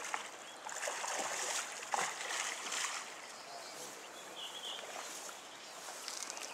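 River water rushing, with a spell of splashing and rustling for the first three seconds, then a quieter steady wash of the current.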